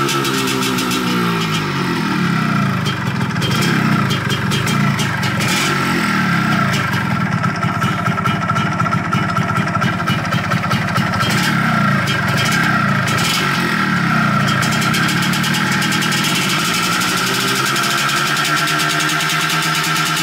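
Yamaha RXZ 135 single-cylinder two-stroke engine running. The revs drop to idle over the first couple of seconds, it idles unevenly through the middle, and the revs climb again near the end.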